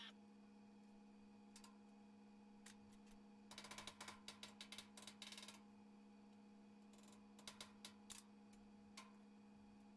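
Faint light taps of a small hammer on the steel edge of a 1941 Chevy truck door: a quick run of taps about three and a half seconds in, and three or four more near the end, over a steady low hum.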